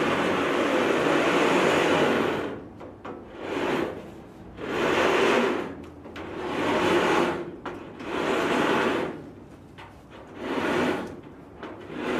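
Outdoor shade-cloth curtain being drawn back: its rod hooks scraping along stainless steel wire ropes, one long slide and then about six shorter pushes.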